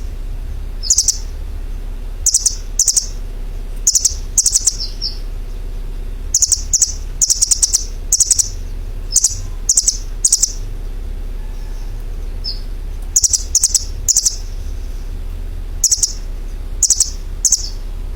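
A bird chirping: short, high chirps in quick clusters of two to four, repeated every second or two, over a steady low hum.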